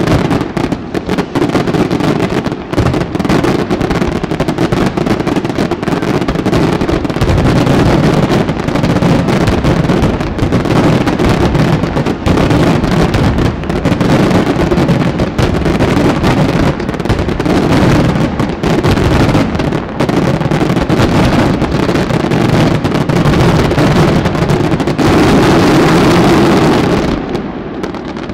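Fireworks display: aerial shells and low-level mines fired in a dense, continuous barrage of bangs that dies away near the end.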